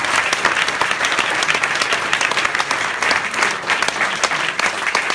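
Audience applauding: dense, steady clapping from a seated concert crowd.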